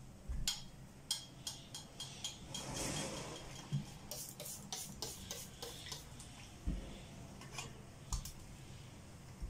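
Electric clothes iron being pressed and moved over cotton fabric on a table to fuse a collar piece. It makes a run of light clicks and knocks, a soft swish about three seconds in, and a dull thump near seven seconds.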